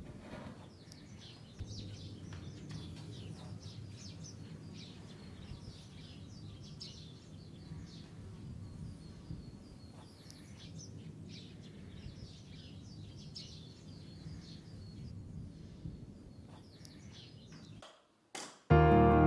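Outdoor ambience: small birds chirping repeatedly over a low, steady background hum. Near the end it cuts out and piano music begins.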